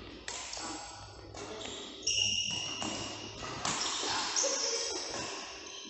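Badminton rally in an indoor hall: sharp racket hits on the shuttlecock about once a second, each ringing on in the hall's echo, mixed with short high squeaks.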